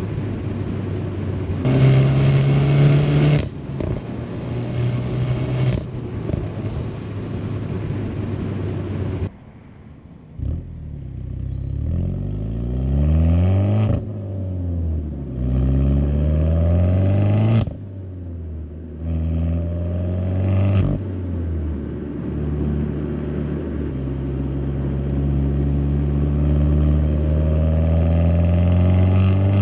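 Peugeot 308 GTi's 1.6 turbo four-cylinder engine and exhaust on the move. For the first nine seconds it is heard with heavy wind and road rush; after a cut it is heard from inside the cabin, where the revs climb and drop several times, as with gear changes, then settle into a steady run.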